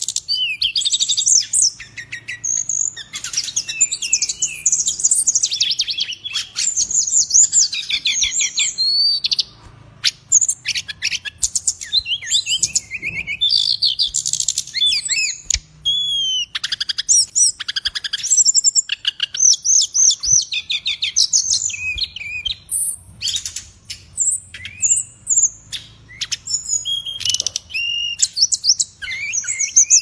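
Brown-chested jungle flycatcher (sikatan rimba dada coklat) in full song: a fast, varied run of trills and whistled notes, nearly continuous with only short pauses.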